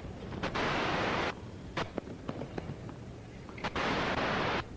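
Loud hiss of static from a worn videotape recording dropping out: two bursts, each starting and cutting off suddenly, with a few faint knocks between them.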